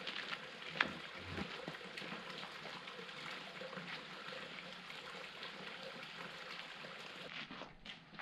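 Steady rush of flowing water, like a small creek, with a light crunch of footsteps on a dirt trail about a second in.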